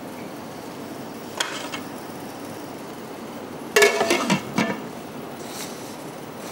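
Kitchen utensils knocking against a cooking pot: a single clink about a second and a half in, then a short run of clattering knocks about four seconds in.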